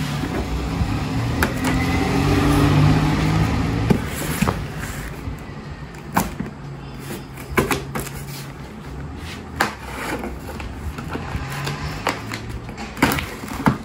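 Box cutter blade scraping and slitting the packing tape on a cardboard box, a rough scratchy sound for the first few seconds, then scattered sharp clicks and taps as the blade catches the tape and the box is handled.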